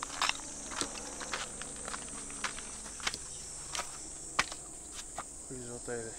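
Steady high-pitched insect buzz outdoors, with the irregular footsteps of someone walking with the camera. A short voice-like sound comes near the end.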